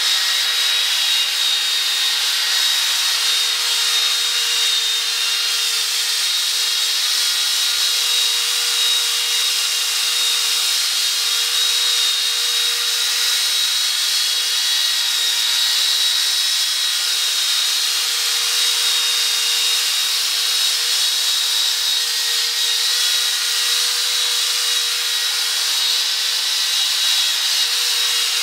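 Electric drill spinning a buffing pad against a headlight lens, running steadily with a high whine. It is buffing the lens with polishing compound in a headlight restoration.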